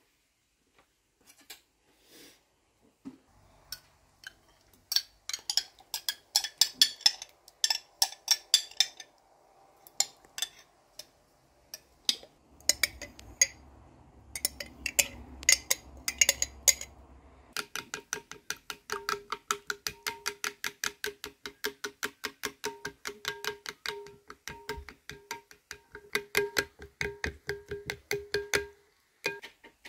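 Metal spoon stirring thick yogurt in a glass bowl, clinking and knocking against the glass. A bit past halfway it settles into fast, even beating, about five clinks a second, with the bowl ringing faintly.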